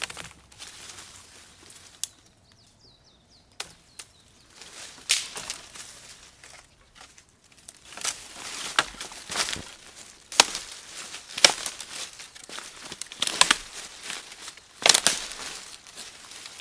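Dry leaves and twigs crunching and rustling in irregular bursts, with a few sharp snaps. The sounds are sparse at first and come thick and fast in the second half.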